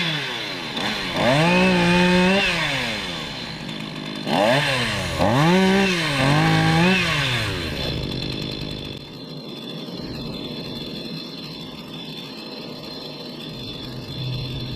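A new Stihl two-stroke chainsaw being revved, about four quick throttle blips that rise and fall in pitch, then dropping back to run lower and quieter for the second half.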